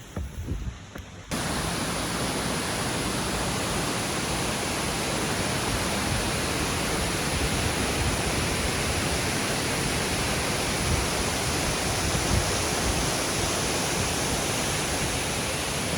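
Rushing water of a waterfall heard up close, a steady, very loud rush that starts abruptly about a second in.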